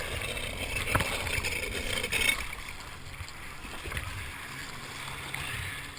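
Kawasaki SX-R 800 stand-up jet ski running low, a steady rumble with water noise. There is a single sharp knock about a second in, and the sound eases off after about two seconds.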